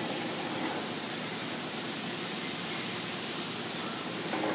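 Lodge & Shipley 13" PowerTurn engine lathe running steadily, its spindle and headstock gears turning at one of a series of trial speeds.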